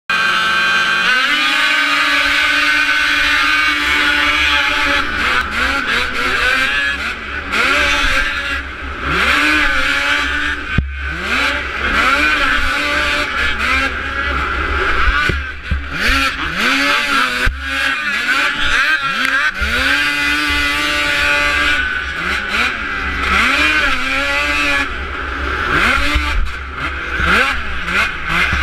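Onboard sound of an Arctic Cat race snowmobile's two-stroke engine under racing throttle. It runs low briefly, jumps to high revs about a second in and holds there for a few seconds, then climbs and drops over and over as the throttle is worked, with a few sudden cuts.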